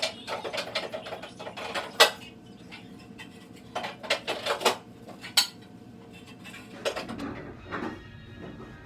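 Small hard pieces clicking and clattering against each other and a hard surface as they are picked up by hand, in irregular bursts, with one sharper clack about two seconds in.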